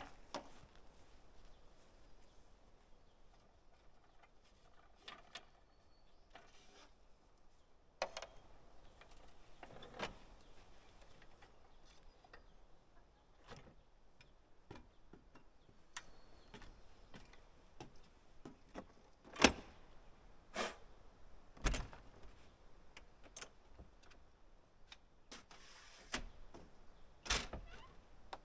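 Scattered clicks and knocks of a truck camper's folding metal entry steps and rear door being handled: steps pulled down and climbed, door latch and lock worked. The loudest knocks come in a cluster about two-thirds through and again near the end.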